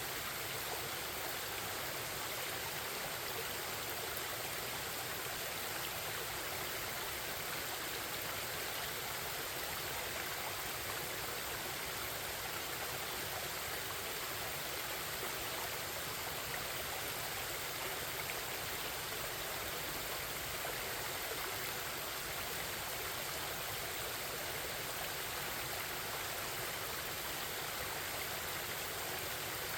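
Forest stream flowing with a steady, unbroken babble of water.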